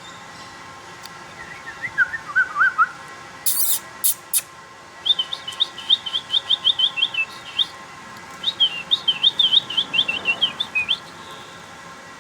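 Birds chirping: a short run of lower chirps, then two long runs of quick, high chirps. Three sharp clicks come before the long runs.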